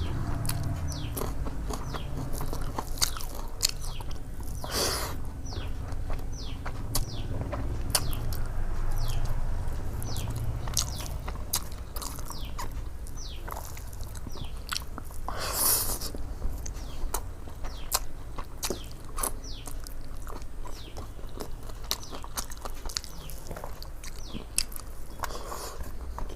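Close-up eating sounds: a person chewing a rice meal with wet mouth clicks and lip smacks throughout, and two louder crunches about five and sixteen seconds in.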